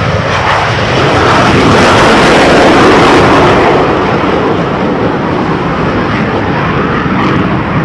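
Jet engine noise of two F-4 Phantom fighters taking off together and climbing away. It swells to its loudest about two to three seconds in, then eases a little but stays loud.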